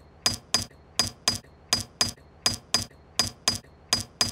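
Cartoon sound of a small tool tapping a concrete block in quick tap-tap pairs, six pairs at an even pace of about one pair every three-quarters of a second: testing the concrete by tapping it.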